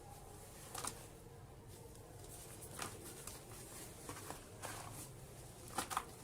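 Slabs of soft dirt crumbling: a handful of short, crisp crackles spaced a second or two apart, the loudest near the end.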